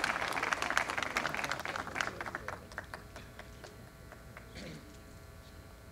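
Audience applause dying away: dense clapping for about two seconds, then thinning to a few scattered claps that fade out.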